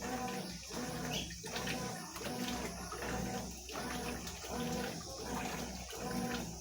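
Consul 12 kg top-loading washing machine agitating during the rinse of a blanket: the motor hums and the water swishes back and forth, reversing direction about every three quarters of a second.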